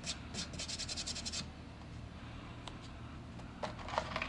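A quick run of light clicks in the first second and a half, then faint scraping and a few single clicks near the end: handling of the cordless drill and the screwed workpiece, with the drill's motor not running.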